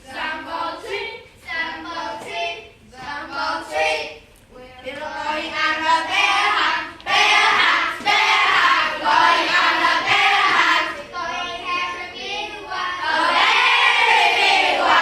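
A group of children singing or chanting together in unison, with long held notes partway through and again near the end.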